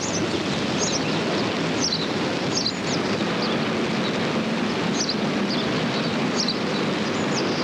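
Small birds chirping in short repeated calls over a steady rushing outdoor background noise.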